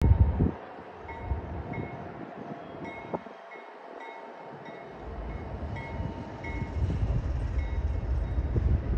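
Wind buffeting the microphone in gusts, strongest right at the start and through the second half, with faint, short, high chime-like tones ringing at irregular intervals.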